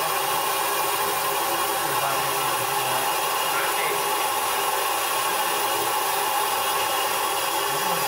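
Steady hissing rush of compressed shop air forced into a Ford 6.0L Powerstroke's high-pressure oil system and leaking out near the injectors, blowing oil vapor. It is the sign of a high-pressure oil leak, which the mechanic expects to be failed injector O-rings.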